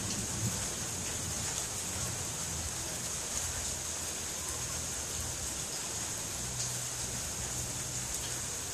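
Steady rain falling as a constant hiss, with the low rumble of a thunderclap dying away in the first half second.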